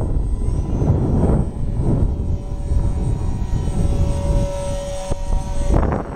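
Depron profile Eurofighter parkjet RC plane in flight, its electric motor and propeller giving a steady whine that is clearest about four seconds in and cuts out near the end, over wind buffeting the microphone.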